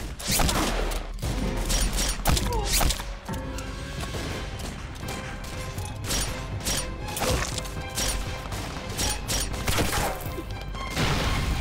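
A pistol gunfight: repeated shots at uneven spacing, coming thickest in the first three seconds and more scattered after, over dramatic background music.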